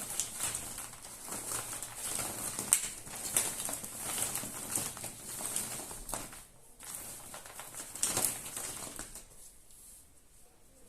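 Foil wrapper of a Kinder Surprise egg being unwrapped by hand, crinkling in quick uneven bursts that die away near the end.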